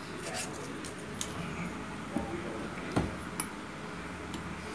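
Light clicks and taps of metal parts as a motorcycle cylinder head and a rubber hose are handled: a few scattered knocks, the loudest about three seconds in, over a low steady background.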